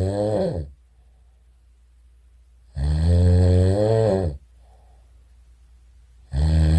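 Snoring sound effect: loud snores, one dying away just after the start, a full one about three seconds in, and the next beginning near the end.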